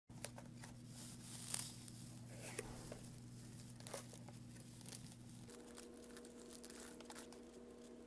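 Faint unboxing sounds: a cardboard padlock box being handled and its packing wrap pulled out, crinkling and tearing with a few sharp clicks, over a steady low hum.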